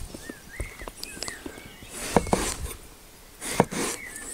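Kitchen knife slicing through an aubergine, each cut ending in a knock of the blade on a wooden chopping board; two main cuts, around the middle and near the end.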